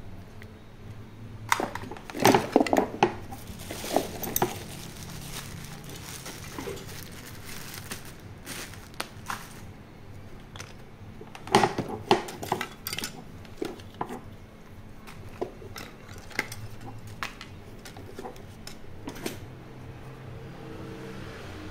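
Irregular clinks, taps and knocks of small hard objects, such as button badges and a wristwatch, being picked up and set down while rummaging through a box of old belongings. The sharpest clatters come in two clusters, about two seconds in and again around twelve seconds.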